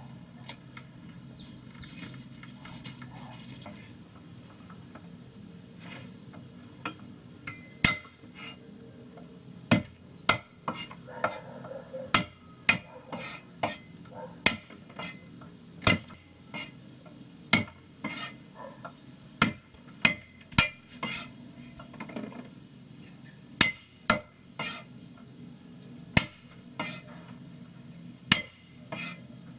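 Kitchen utensils and containers being handled: faint scraping at first, then, from several seconds in, a long irregular run of sharp knocks and clinks, about one or two a second, over a low steady hum.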